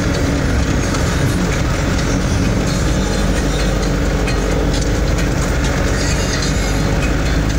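Road noise heard inside a moving vehicle's cab on a rough dirt track: steady engine and tyre noise with frequent rattles and knocks from the body jolting over bumps.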